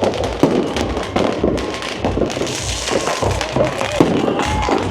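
Fireworks and firecrackers going off in quick, irregular cracks and bangs, over music with a steady bass beat.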